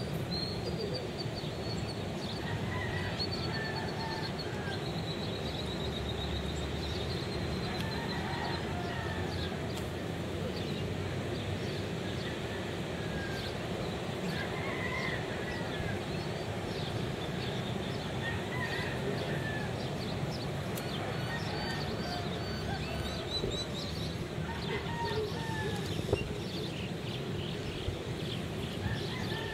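Steady wash of breaking ocean surf, with birds giving short arching calls every few seconds over it.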